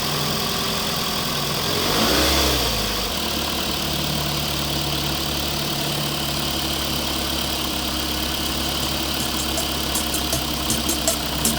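Engine sound of an RC dump truck idling steadily, with a brief rev that rises and falls about two seconds in. Near the end a run of sharp, regular clicks begins.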